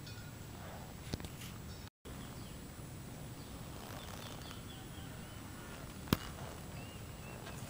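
Outdoor ambience: a steady low rumble with faint bird chirps. There is a sharp click about a second in and a louder one about six seconds in. The sound cuts out completely for a moment about two seconds in.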